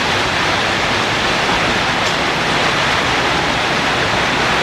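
Steady hiss of coconut-rice batter sizzling in a hot kanom krok pan.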